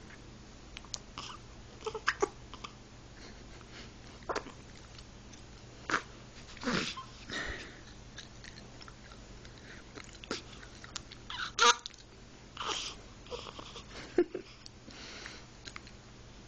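Hiccups: about ten short, sharp catches at uneven intervals, one every second or two, a couple of them with a quick falling pitch.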